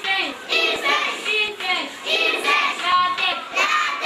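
Children's high voices reciting a lesson aloud in a sing-song chant, in short, evenly paced syllables.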